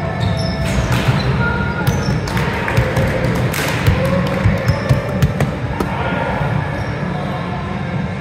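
Volleyball being hit and bouncing on a hardwood gym floor: a run of sharp thuds between about one and five seconds in, over music.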